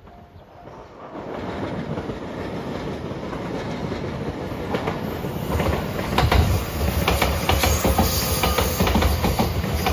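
JR West 227 series electric multiple-unit train approaching and passing close by. It grows steadily louder from about a second in, then runs as a heavy rumble with the clatter of wheels over rail joints.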